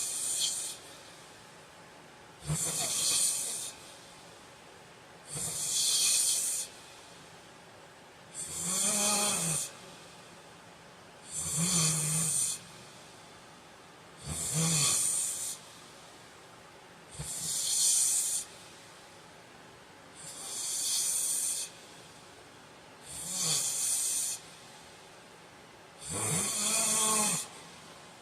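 A man snoring in his sleep, one snore roughly every three seconds, about ten in all. Each snore is a hissing breath of a second or so, several with a low buzz underneath.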